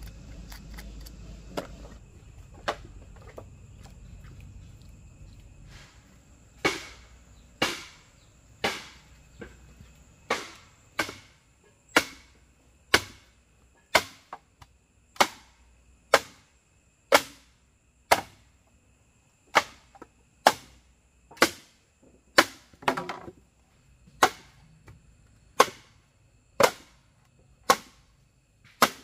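A run of sharp, evenly paced blows from a hand tool, about one a second, starting about six seconds in.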